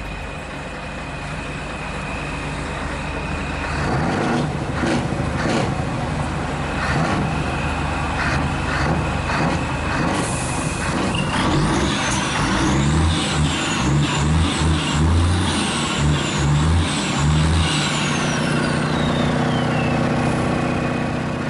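Scania 124L truck running as it moves off. From about midway a series of pulsing low tones comes in, with gliding high tones above them.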